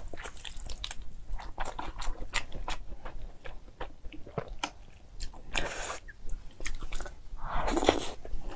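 Close-miked chewing of a mouthful of noodles and food, with many small sharp mouth clicks, and two longer mouth sounds about six and eight seconds in.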